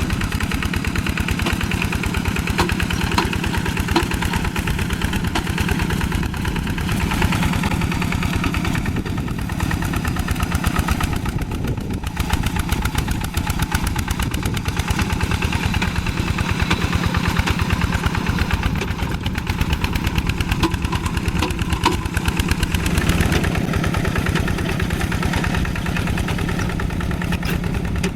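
Diesel tractor engine running steadily, with a fast, even beat.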